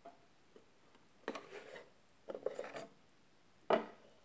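Wooden cover of an oak-cased clockwork fly trap being handled and lifted off its mechanism compartment: two short stretches of wood scraping and rubbing on wood, then a sharp knock near the end.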